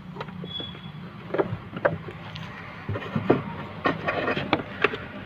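Scattered clicks, taps and rubbing from hands handling parts right at the microphone, over a steady low hum.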